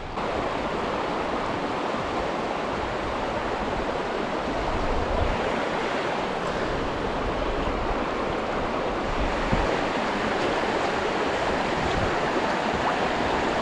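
Steady rush of flowing river water, an even hiss with no breaks, starting suddenly at the beginning.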